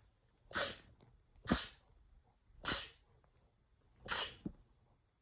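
Four short, sharp sneezes in quick succession, roughly a second apart, with a brief extra puff right after the last one.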